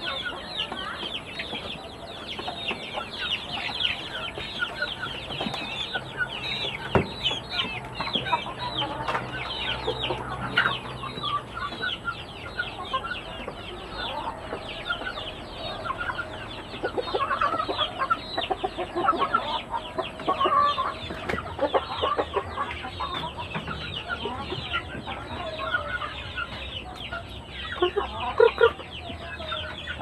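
Chickens clucking in a coop over a dense, continuous high chirping, with louder clucks about halfway through and near the end.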